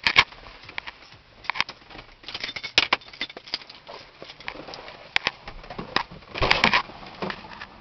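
Scattered clicks, knocks and rustling from a handheld camera being moved about and brushing against a car's seats, with a louder scuffing burst near the end.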